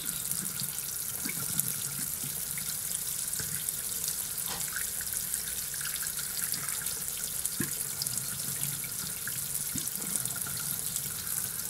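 Water running steadily from a tap into a sink, an even rushing hiss with a few faint drips and splashes.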